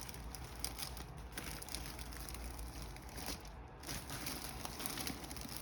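Faint, scattered crackling and crinkling of the gift basket's wrapping as the wrapped basket is handled and turned.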